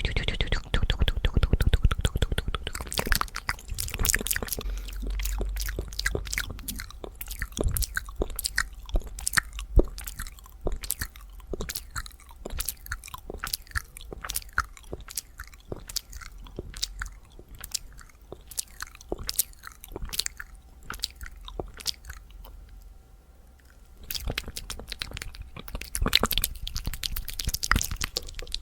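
Fast ASMR mouth sounds close to the microphone: rapid wet clicks and smacks of lips and tongue, with a short pause about three-quarters of the way through before they pick up again.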